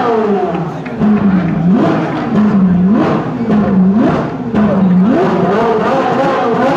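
A sports car's engine revving. The note drops as it comes off the throttle, then gives four short blips about a second apart, and near the end the revs climb and hold.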